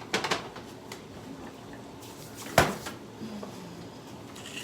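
Kitchen clatter of dishes and utensils: a quick run of light clinks at the start, then one sharp knock about two and a half seconds in.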